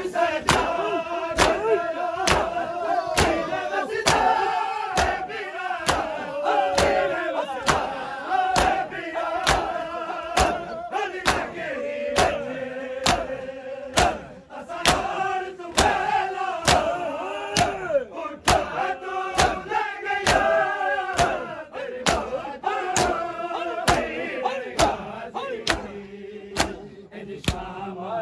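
A crowd of men beating their bare chests with open hands in unison (matam), sharp slaps in a steady rhythm of about two a second. Male voices chant a mourning lament (noha) over the beat.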